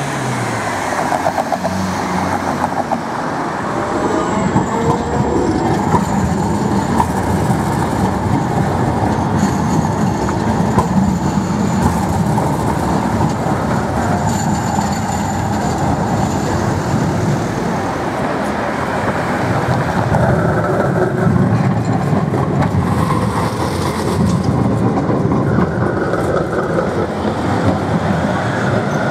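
Tram running on its rails: a steady rumble of wheels and running gear, with a faint high whine at times.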